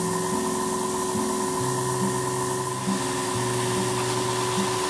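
Background music: a few held tones over a low bass line that steps between notes, with a steady hiss.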